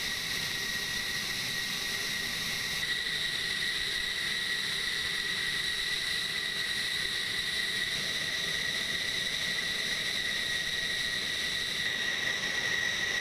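Steady high-pitched whine of an F-16's jet engine running at idle, over a constant rushing hiss.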